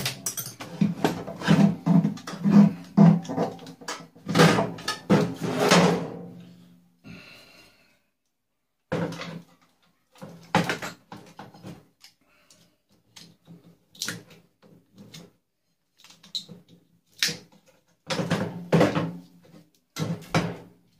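Cordless drill-driver running in short trigger bursts as screws are backed out of a microwave's sheet-steel back panel, for about the first six seconds. After that, scattered clicks and knocks of metal parts and wiring being handled and pulled loose.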